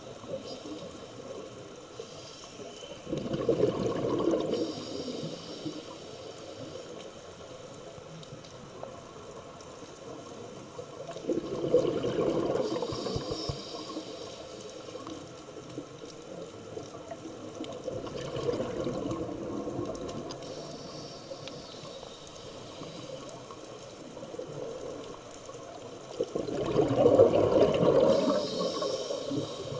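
Scuba diver's breathing through a regulator underwater: four bursts of rushing, bubbling noise as exhaled air vents as bubbles, each about two seconds long and several seconds apart, the last one the loudest, with a faint steady hiss between breaths.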